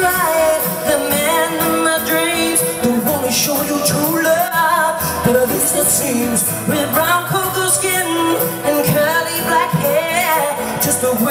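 Live pop music: a woman singing lead into a microphone over synthesizer keyboards, played loud through the stage sound system.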